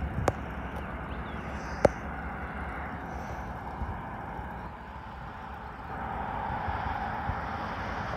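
Steady outdoor noise of wind and a distant approaching train, growing louder about six seconds in, with two sharp clicks in the first two seconds.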